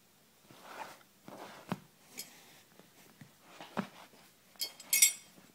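A cotton fabric belt being handled: soft rustling and two short knocks, then the metal belt buckle clinking with a bright ringing jingle near the end.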